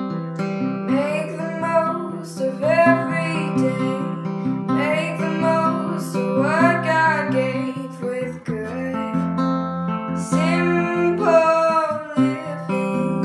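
Intro music: a strummed acoustic guitar with a singing voice over it in short melodic phrases.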